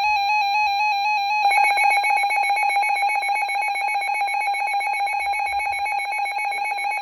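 Two overlapping electronic emergency alert tones for a tornado warning, one of them an iPhone's Wireless Emergency Alert. A shrill tone flips rapidly between two pitches, and about a second and a half in a second tone joins it, pulsing rapidly.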